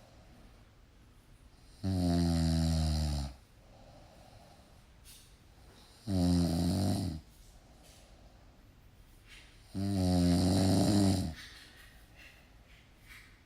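Snoring: three loud snores about four seconds apart, each lasting a second or so, with much quieter breathing between them.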